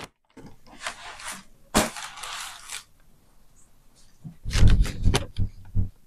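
Paper packaging rustling and crinkling as it is handled, in several stretches over the first three seconds, followed by a run of loud dull thumps and bumps about four and a half seconds in.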